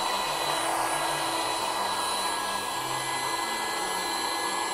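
Electric car air pump running steadily with a constant whine, blowing air into an inflatable car air mattress as it fills.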